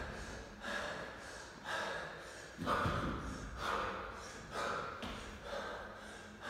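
A man breathing hard and rhythmically from exertion, a forceful breath about once a second.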